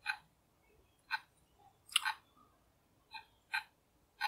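About six short, sharp clicks from a computer keyboard and mouse, spaced irregularly half a second to a second apart.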